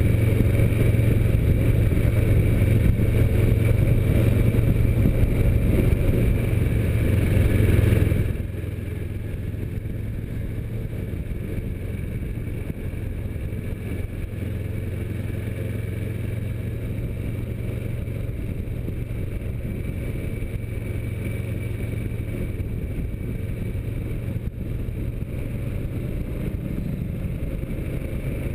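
Kawasaki Versys motorcycle running at street speed: a steady engine drone with road and wind noise. It drops abruptly to a quieter level about eight seconds in and then stays steady.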